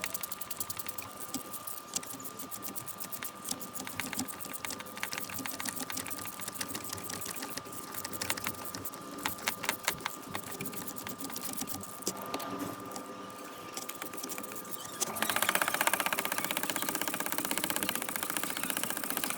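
Ratchet wrench clicking in quick runs while the bolts of a starter motor are tightened, growing faster and louder in the last few seconds.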